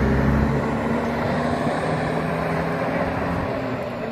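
Motor vehicle engine idling steadily, a low even hum.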